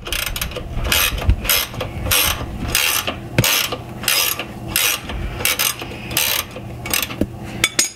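Ratchet wrench clicking in short repeated strokes, roughly two a second, as the 24 mm rear trailing-arm bolt of a Toyota Land Cruiser FZJ80 is worked loose.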